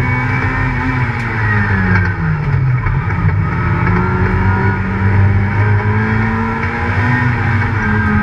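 Competition car's engine heard from inside the cabin, dropping in revs about two seconds in and then climbing steadily as the car accelerates out of a turn on a slalom course.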